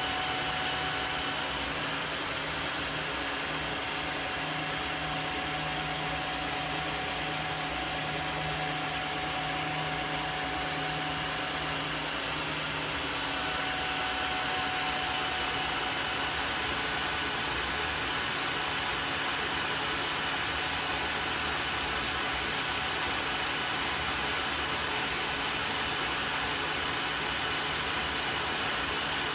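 Tineco Floor One cordless wet-dry vacuum running steadily in its self-cleaning deep-cleaning stage, the suction motor and brush roller whirring as water is drawn through the machine. A low hum within it shifts slightly about twelve seconds in.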